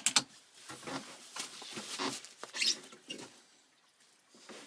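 A bolt-action .22 rimfire rifle, Bergara B14R: one sharp crack right at the start, then a scatter of light clicks and scrapes from the rifle being handled and worked.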